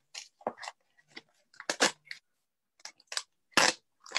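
A packet of Color Street dry nail-polish strips being torn and crinkled open by hand: a run of short, sharp crinkles and rips, the loudest near the middle and near the end.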